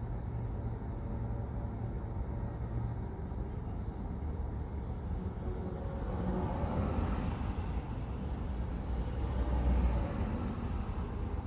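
Steady low rumble of traffic. A car passes close about six seconds in, then a heavy truck's diesel engine swells, loudest about ten seconds in, as the truck rolls slowly past.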